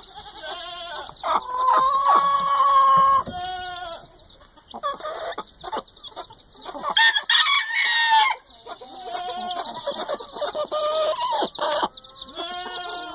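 Chickens clucking and calling, some calls long and drawn out, over the constant high peeping of chicks.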